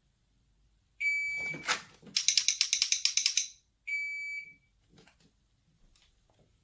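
Electronic timer beep about a second in, a fast run of about a dozen sharp clicks, then a second matching beep near the fourth second: the start and end beeps of a timed dry-fire repetition.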